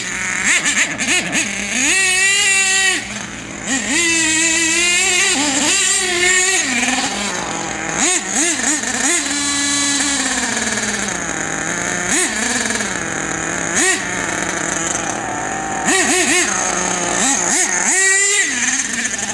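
HPI Savage X 4.6 nitro RC monster truck's small two-stroke glow engine revving up and down in quick blips. Several longer high-pitched runs come about 2 s, 4 to 6 s, 9 s and 16 s in.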